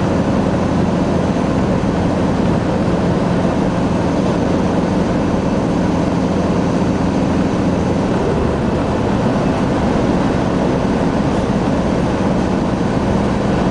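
Steady drone of a car driving at motorway speed, heard from inside the cabin: engine hum with tyre and road noise, unchanging throughout.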